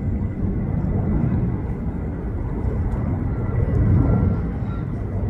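Distant twin-engine jet airliner climbing after takeoff: a steady low rumble of its engines that swells slightly about four seconds in.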